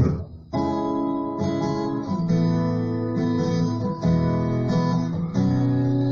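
Music played through a trailer-mounted car sound system: a song intro of guitar chords, each held for about a second before changing, starting after a brief drop just after the beginning.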